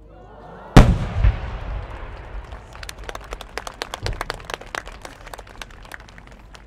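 A 10-go (about 30 cm) core-type chrysanthemum firework shell bursts with one loud boom a little under a second in, trailing off in a low rumble. A fainter low thump comes a few seconds later, among a scatter of sharp clicks that go on for several seconds.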